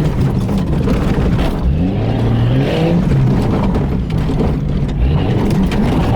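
Jeep Cherokee XJ's engine running under load while driving off-road, its pitch rising and falling with the throttle.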